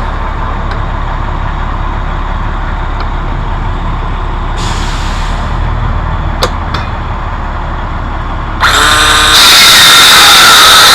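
A power saw's motor spins up about 8.5 seconds in, then cuts loudly for the last couple of seconds, which fits a circular saw cutting into the plastic office chair base. Before that, a truck engine runs steadily in the background, with a short hiss of air partway through.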